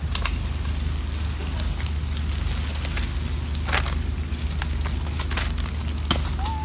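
Scattered light crackles and clicks of monkeys handling plastic-wrapped snack packets and bananas, over a steady low rumble.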